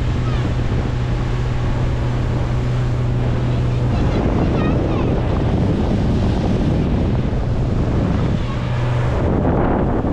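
Tour boat's engine running with a steady low hum, under the rush of water and wind buffeting the microphone, which swell about four seconds in and again near the end.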